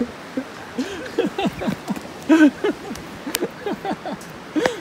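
A person's voice making short, low, wordless sounds, several a second, with two sharp clicks near the end.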